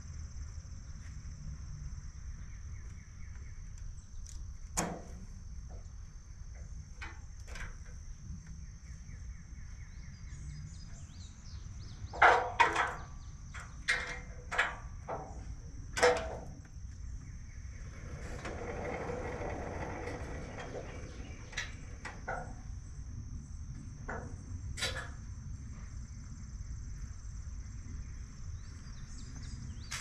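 Metal clunks and knocks from a Woodland Mills HM126 band sawmill head being moved along its rails, loudest in a cluster about halfway through, with a few seconds of rolling rumble as the carriage travels. A steady high insect drone runs underneath.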